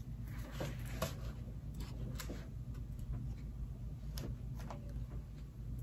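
Pages of a book being turned and handled: faint paper rustles and light ticks scattered through, over a steady low hum.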